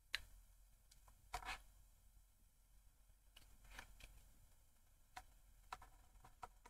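Faint taps and clicks of a stylus on a drawing tablet while handwriting, scattered irregularly and bunching together near the end, over low steady hiss.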